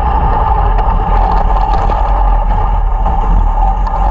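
500cc open-class outlaw kart engine running hard at racing speed, heard from the onboard camera as a loud, steady drone.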